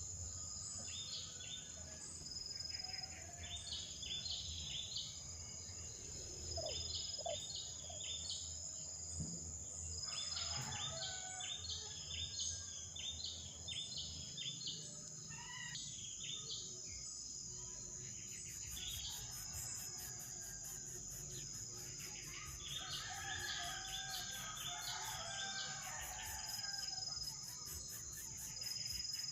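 Short bird chirps repeated in quick runs, with pauses between the runs, over a steady high-pitched drone of insects.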